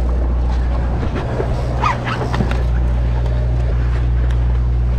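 Steady low drone of a sportfishing boat's engine. A brief higher-pitched sound comes about two seconds in.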